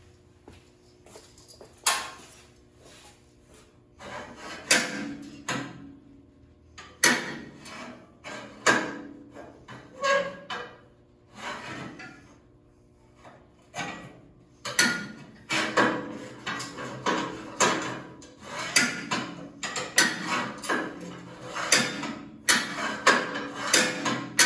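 Spring-loaded steel latch rod of a turnover-ball gooseneck hitch being worked by hand, clacking and clanking against its welded steel stop tabs and bracket again and again in irregular bunches, coming thicker and faster in the second half.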